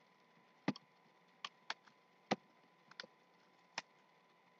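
Light, scattered clicks and ticks of a doll's plastic box packaging being handled, about eight irregular taps.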